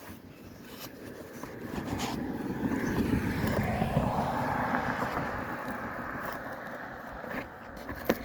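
A motor vehicle driving past, its noise swelling to a peak about four seconds in and then slowly fading away.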